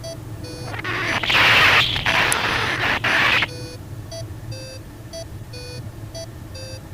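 Electronic warning beeps repeating about twice a second, alternating between two pitches. A loud gust of wind rushing over the microphone covers them for about two seconds near the start.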